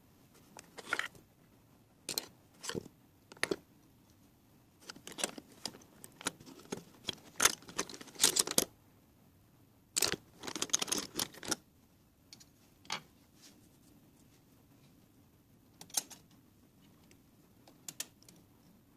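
Irregular clicks, rattles and rustling from hands handling small hardware, busiest in the middle; a few single clicks near the end as a plastic wall plate is brought up against the outlet.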